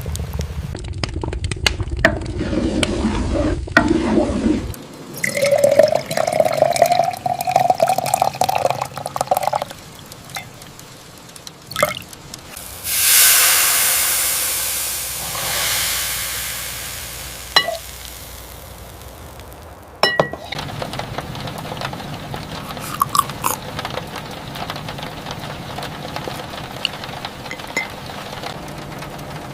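Kitchen cooking sounds: pots and utensils clink, and liquid is stirred and poured. About halfway through, a loud hiss starts suddenly and fades over a few seconds, with scattered small clicks and knocks around it.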